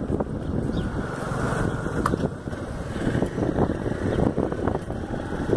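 Wind buffeting a phone's microphone on a moving motorcycle, with the motorcycle's engine running underneath.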